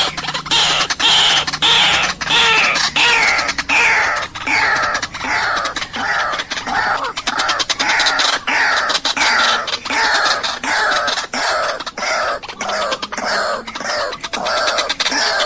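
White-breasted waterhen (ruak-ruak) calling: a long unbroken run of harsh falling notes, about two a second, the kind of recording played as a lure call for trapping.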